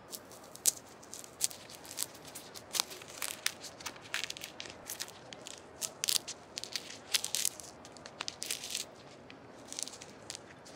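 Mandarin oranges being peeled by gloved hands: a close, irregular run of crackling and tearing as the peel is pulled away.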